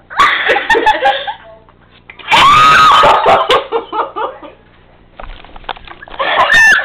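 Women laughing and shrieking, with a loud, long, high-pitched squeal about two seconds in and more shrill squeals near the end, as a pore strip is peeled off a nose, which the uploader ties to pain.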